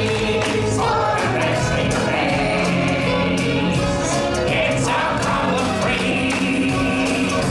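Live stage-show music: a choir of voices singing over a band with a steady beat.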